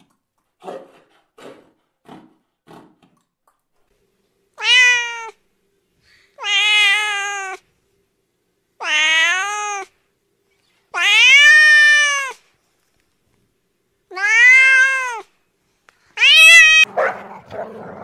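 A domestic cat meowing six times, each meow about a second long with a pitch that rises and falls, a second or two apart. Near the end a puppy starts growling.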